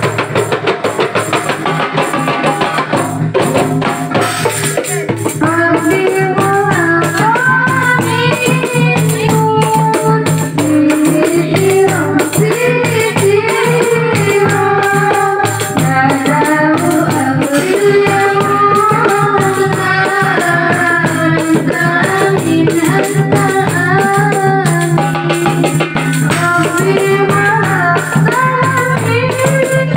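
Marawis percussion ensemble playing a steady rhythm on hand drums with jingling tambourine. A female voice starts singing a melismatic melody about five seconds in.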